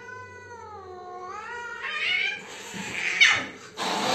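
A cat yowling while it is held down: one long drawn-out wail that sags and rises in pitch, then louder, harsher yowls, with a loud rough cry near the end.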